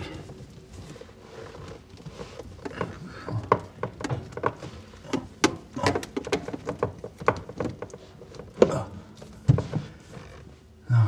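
Plastic under-sink drain trap and fittings being handled and worked loose by hand: irregular clicks, taps and knocks of plastic parts, several a second, with a sharper knock about two-thirds through.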